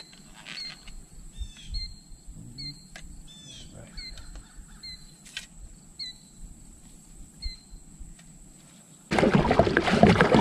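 A songbird repeats a short high chirp with a downward flick about every half second, with a few other bird chirps around it. About nine seconds in, this gives way to loud rushing wind and water noise on the water in a kayak.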